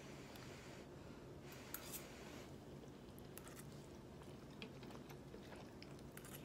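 Faint slurping and chewing of instant noodles by two people, with a few light clicks of forks in bowls, over a low steady hum.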